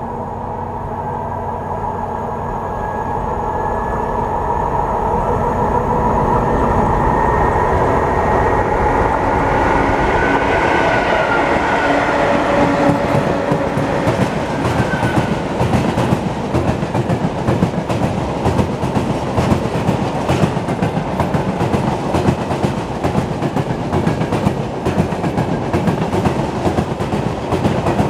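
A freight train approaches and grows louder, then a long string of tank wagons rolls past close by, its wheels clicking in a steady rhythm over the rail joints.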